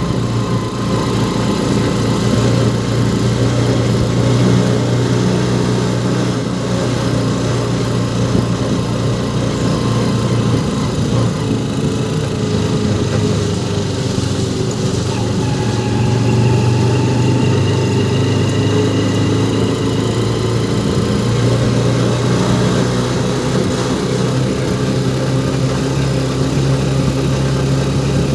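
An engine running steadily with a constant low hum, its pitch shifting only slightly.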